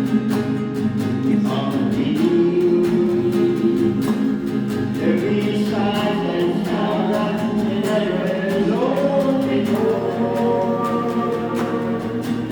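Gospel music: a choir holds long, wordless notes that slide from pitch to pitch, over a steady instrumental accompaniment.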